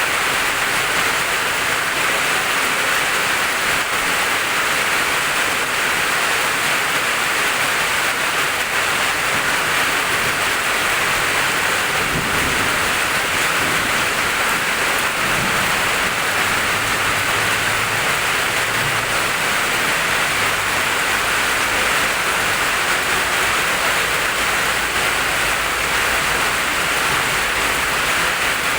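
Steady heavy afternoon rain falling, an even hiss throughout, with a faint low rumble about halfway through.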